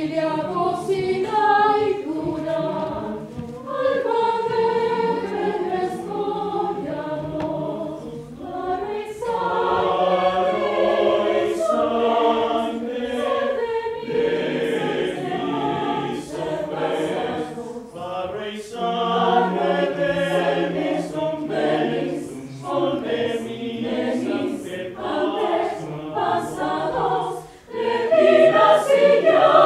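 Mixed choir of men's and women's voices singing, in phrases broken by short pauses.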